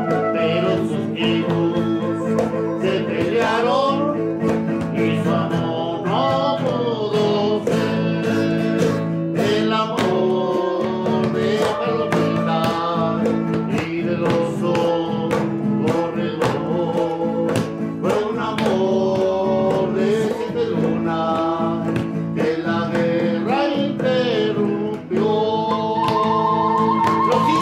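Live acoustic music: a hand-held wind instrument plays a melody, with some sliding notes, over a strummed acoustic guitar.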